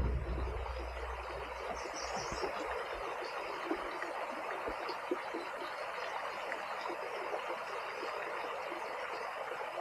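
Steady rushing of a small trout stream's flowing water, with a low rumble dying away in the first second.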